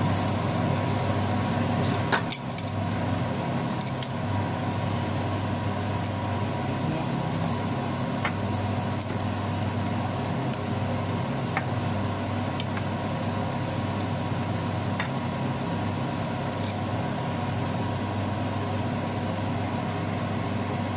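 Pork simmering in a bubbling shrimp-paste sauce in a frying pan, over a steady hum, with a few sharp clicks of a spatula against the pan, the loudest about two seconds in.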